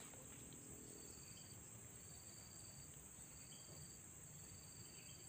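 Faint insect trills, each under a second long and coming about once a second, over a steady high drone; otherwise near silence.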